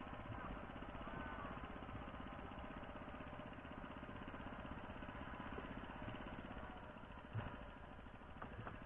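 A small engine running steadily with a fast, even beat, with one light knock about seven seconds in.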